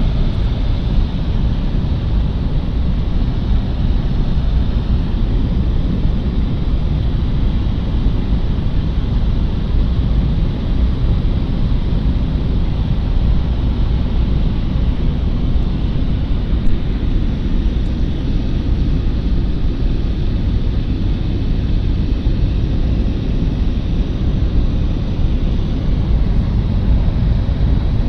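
Steady drone of a propeller aircraft's engines heard from inside the cabin, loud and unchanging, with most of the sound low down.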